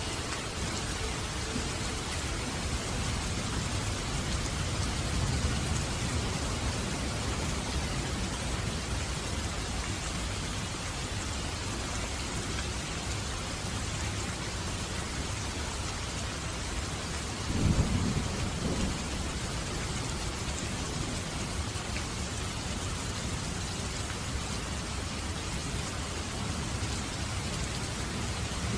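Steady rain with thunder. A low rumble swells a few seconds in, and a short, louder thunderclap comes a little past the middle.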